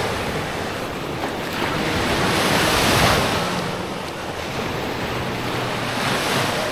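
Small Lake Michigan waves washing up on a sandy beach, the hiss swelling and fading as each wave comes in, about every three to four seconds. Wind buffets the microphone underneath.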